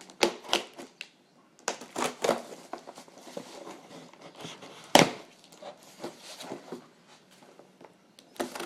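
Hands handling laptop screen parts: irregular rustling and light knocks, with one sharp knock about five seconds in.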